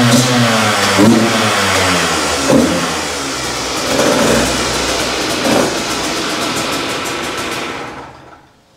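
2023 KTM 150 EXC TBI's fuel-injected single-cylinder two-stroke engine revving through a series of throttle blips, the revs rising and falling, then dying away near the end.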